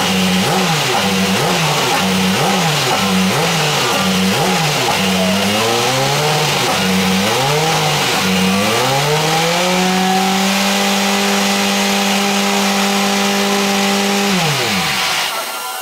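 Dallara SF14 Super Formula car's Toyota 2.0-litre turbocharged four-cylinder racing engine during a warm-up. It is blipped rhythmically about twice a second, then revved unevenly, and then held at a steady raised speed for several seconds. Near the end the revs drop away and the engine shuts off.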